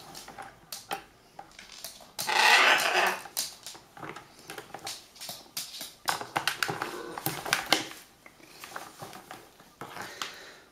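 Blue-and-gold macaw playing in a plastic bucket of water: bursts of splashing and knocks against the bucket, with the bird's own calls. The loudest burst comes about two seconds in.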